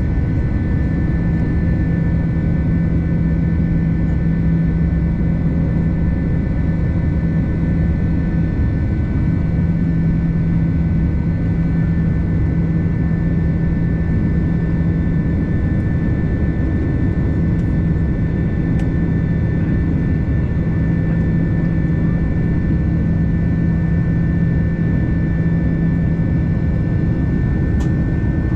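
Steady jet airliner noise from an Airbus A330-300, engine and airflow rumble with a low hum and a few steady high whining tones, holding level without rising or falling.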